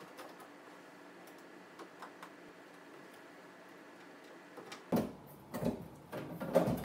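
A few faint ticks of screws and a small Allen wrench being worked. From about five seconds in, a run of louder knocks and clatter as the back cover panel of a milking unit is pulled off and handled.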